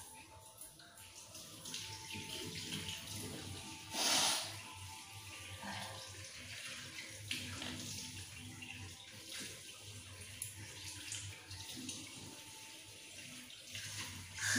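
Tap water running into a wash basin, with a brief louder burst about four seconds in and again near the end.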